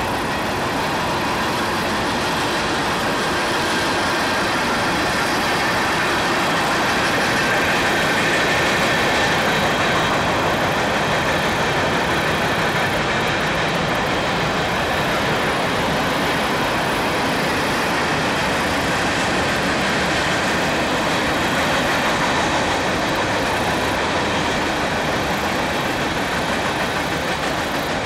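Freight train rolling past at speed, the wheels of its cars running steadily and loudly on the rails.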